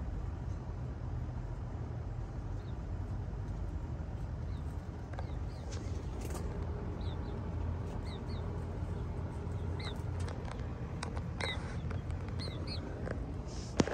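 Short, high-pitched bird chirps, often in quick pairs, start about five seconds in and come several times over a steady low rumble. One sharp click near the end is the loudest sound.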